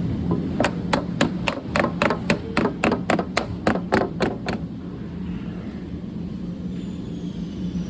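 Glazing bead being tapped into a window frame: a quick, even run of sharp taps, about three a second, that stops about four and a half seconds in. A steady low hum runs underneath.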